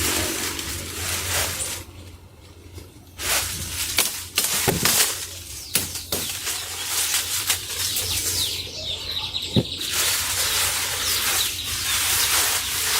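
Rustling and crackling of dry leaves and brush, with scattered sharp snaps of twigs; it drops away briefly twice.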